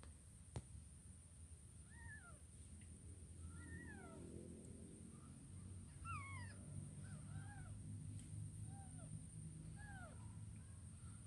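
Nursing kittens mewing faintly: about nine short, high calls that rise and fall, starting about two seconds in and coming in small clusters. A single sharp click about half a second in.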